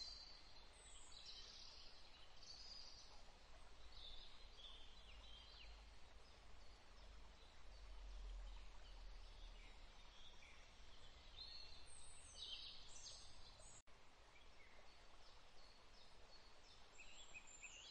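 Near silence, with faint, scattered bird chirps and a low hum in the background.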